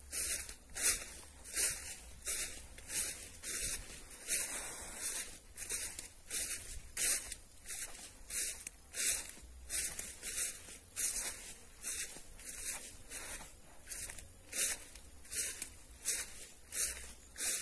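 Footsteps swishing through tall grass and weeds, a steady walking rhythm of about two rustling swishes a second.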